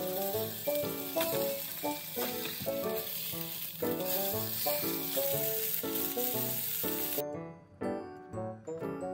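Egg-coated pork slices (pork piccata) sizzling as they fry in a frying pan. The sizzling cuts off suddenly about seven seconds in, and light melodic background music plays throughout.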